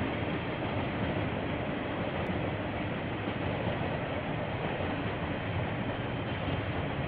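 A KiwiRail train passing, a steady, even rumble of wheels on the rails, heard through a security camera's microphone with a dull, muffled top end.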